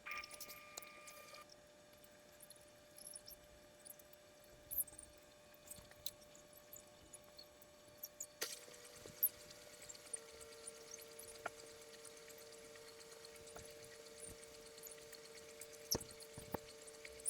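Scattered light clicks and taps of small miniature figures being handled and sorted, over a faint steady electrical hum.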